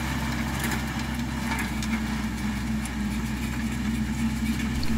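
Kioti RX7320 utility tractor's diesel engine running steadily, heard from outside the tractor, as it pulls a disc chisel plow.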